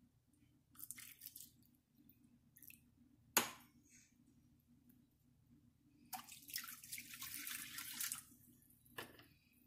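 Water poured from a plastic cup into a hot stainless-steel frying pan, a steady pour lasting about two seconds near the end, with a few shorter pours earlier. A single sharp tap about a third of the way in.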